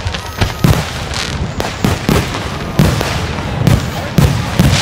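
Fireworks going off: a quick series of bangs, about two or three a second, some with deep booms.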